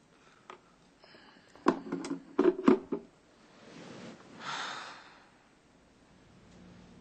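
A cluster of sharp knocks and clatters of hard objects, then a long breath out that swells and fades.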